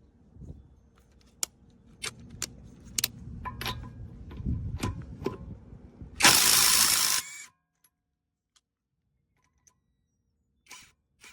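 Metal clicks and clinks, then a cordless impact wrench runs in one loud burst of about a second that stops abruptly. A few more clicks come near the end.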